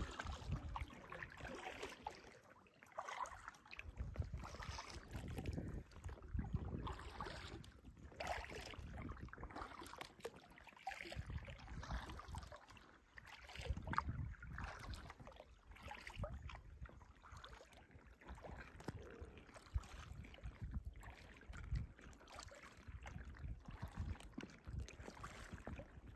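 Kayak paddling: a paddle dipping and swishing through the water about every second or two, faint, with water dripping between strokes.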